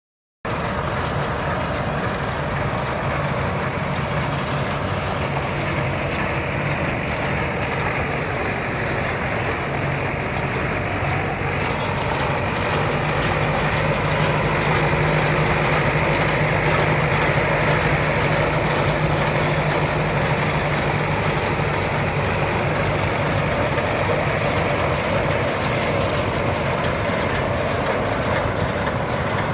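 Tractor engine and round baler running steadily, a little louder for several seconds in the middle.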